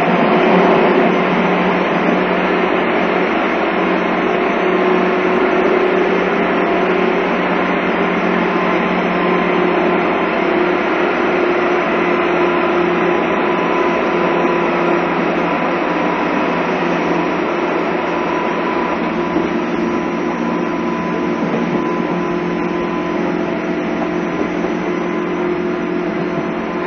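JR East 201 series electric commuter train running, heard from inside the car: a steady rumble of wheels and running gear with a few held tones from the motors over it. The level eases off slowly.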